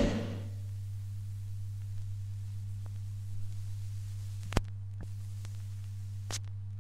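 A thrash metal track cuts away in the first moment. Then a steady low electrical hum runs from the vinyl playback chain, with a few sharp clicks that come back about every 1.8 seconds as the stylus runs on past the end of the LP's music. The loudest click comes a little past halfway.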